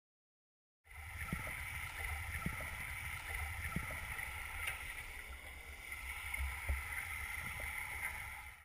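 Water noise heard through a submerged camera: a steady low rumble of moving water with scattered light clicks. It starts suddenly about a second in and cuts off at the end.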